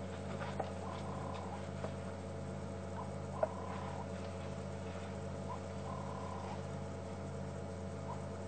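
Game-drive vehicle's engine idling with a steady low hum, under a short whistled call that repeats every two to three seconds and a few faint clicks.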